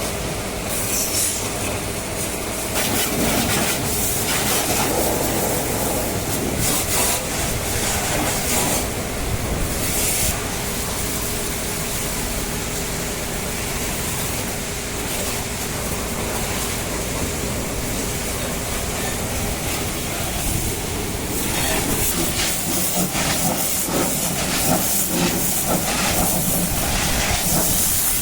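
High-pressure water jet hissing and spattering as a JCB 3DX Plus backhoe loader is washed, over the steady hum of a motor.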